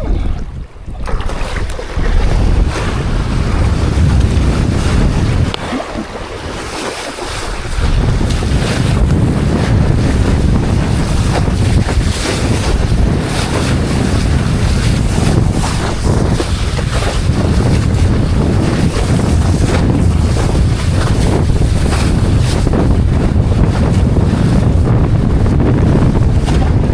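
Strong wind buffeting the microphone over the rush and splash of water while travelling fast across open water. The heavy wind rumble drops away briefly near the start and again about six seconds in.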